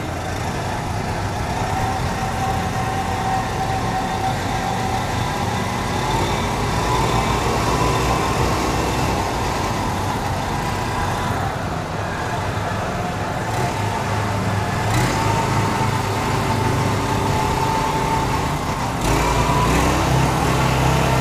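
Single-cylinder Honda GX390 13 hp petrol engine of an MTZ Belarus walk-behind tractor running steadily as the machine drives along, a little louder near the end.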